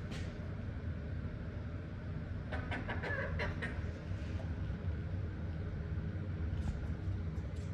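Young chicken giving a short run of clucking calls about two and a half seconds in, with a few fainter calls near the end, over a steady low rumble.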